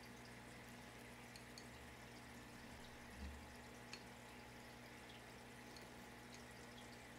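Near silence: faint steady room hum with a few tiny soft ticks and one short low bump about three seconds in.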